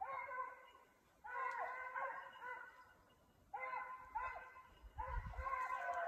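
Several hunting dogs baying on a hare's trail: drawn-out, overlapping bawling in bouts of a second or more with short breaks between them. This is the sound of the pack running a hare.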